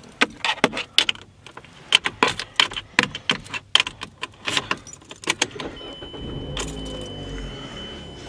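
Car keys jangling and clicking as the key is worked into a Mazda's ignition. About six and a half seconds in the engine turns over and starts, then settles into a steady idle, while a thin steady high tone sounds from the dash.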